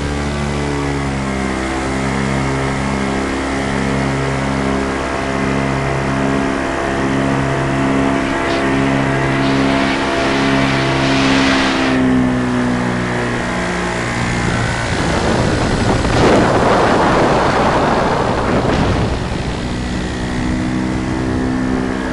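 Paramotor engine and propeller running steadily in flight, with a louder, noisier surge about two-thirds of the way through.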